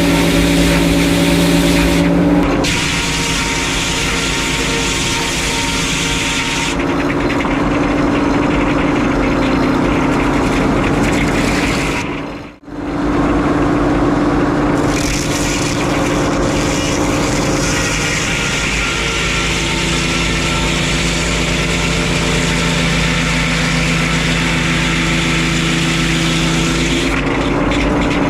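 Frick 01-C circular sawmill running under power, the engine's steady drone mixed with the blade and carriage noise. The sound shifts as the work changes, a few seconds in and again near the end, and it drops out for a moment just under halfway through.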